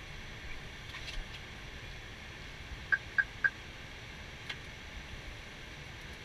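Steady airflow and equipment noise on an Airbus A320 flight deck in flight, with three quick high-pitched beeps about a quarter second apart near the middle.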